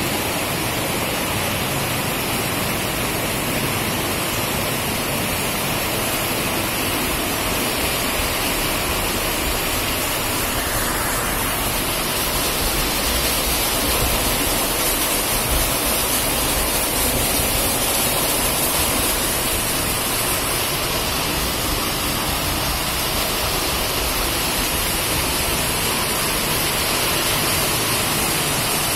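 Heavy rain falling steadily on corrugated roof sheets, with runoff pouring down beside a wall: a dense, unbroken hiss.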